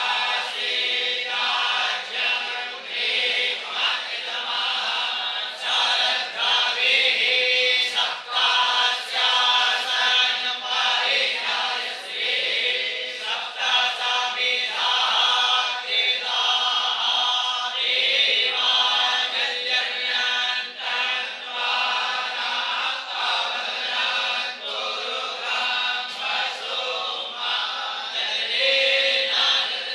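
A group of young Vedic students chanting Sanskrit mantras together in unison, phrase after phrase without a break.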